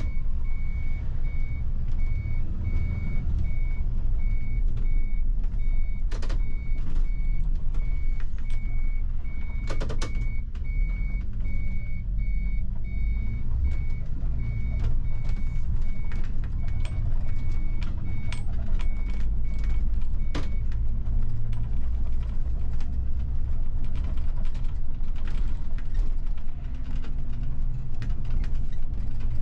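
Bus running, heard from the driver's cab as a steady low engine and road rumble, with an electronic warning beep repeating about twice a second that stops about twenty seconds in. A few sharp knocks and rattles, the loudest near a quarter and a third of the way through.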